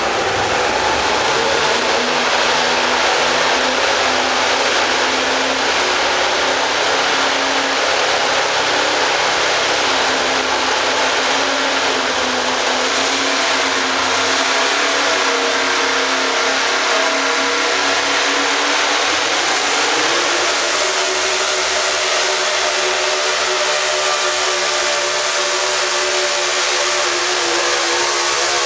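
Economy hot rod pulling tractor's engine running hard at high revs while hauling the weight sled. The sound is loud and steady, and its pitch rises slowly through the second half.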